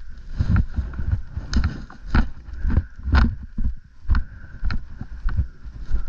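Footsteps of a player walking over rough ground, about one to two steps a second, with gear and clothing rustling against a microphone worn on the body.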